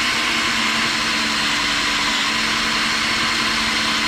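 DeWalt cordless drill running steadily at constant speed, driving a countersink bit into a hole in a steel plate.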